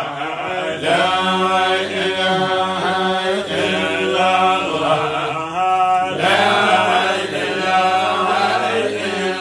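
A man chanting a Sufi religious invocation (dhikr) in Arabic, in long, melodic phrases with short breaks between them.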